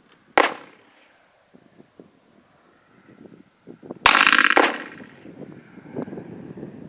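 Two shots from a Smith & Wesson Model 629 revolver: a sharp crack about half a second in, then a louder shot about four seconds in that rings on for most of a second.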